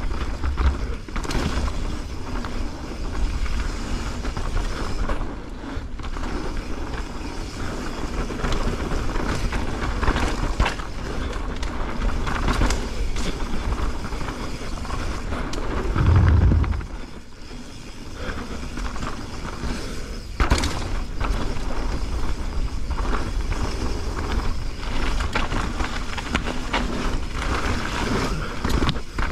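Mountain bike descending a dirt trail at speed: steady rough noise of tyres rolling over dirt and gravel, with scattered clicks and rattles from the bike. About sixteen seconds in there is a loud low rumble lasting about a second.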